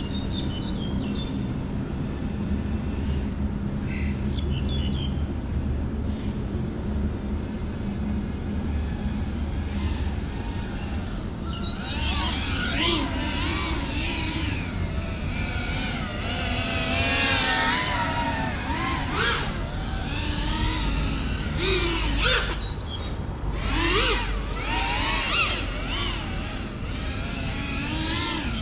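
GEPRC CineLog35 ducted FPV quadcopter flying, its motors and propellers whining and sweeping up and down in pitch as the throttle changes. For the first ten seconds or so only a low steady hum is heard; the rising and falling whine comes through strongly from about twelve seconds in.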